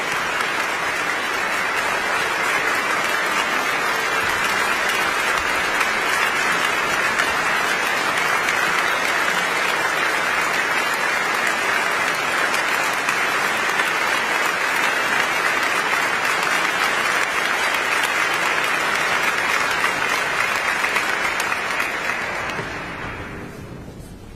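Concert hall audience applauding steadily, the applause dying away over the last two seconds.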